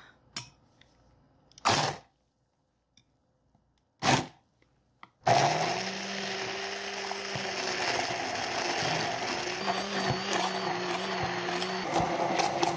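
Immersion blender puréeing soaked cashews with water in a glass measuring jug. Two brief bursts come first; about five seconds in it starts running steadily, with a low motor hum under a whirring churn of liquid and nuts.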